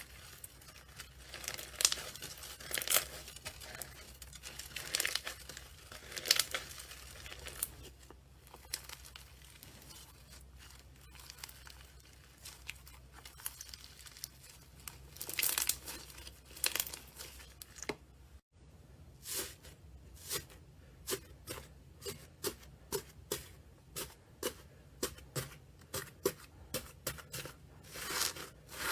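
Slime handled close to the microphone, first crackling and tearing in irregular bursts, then about two-thirds through changing to a steady run of crisp pops about twice a second as it is pressed and released.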